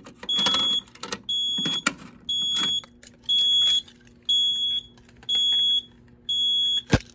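Fire alarm sounder beeping a high tone about once a second, each beep about half a second long, while the system is in audible walk test. Near the end there is a sharp click as the Edwards pull station is snapped shut on reset.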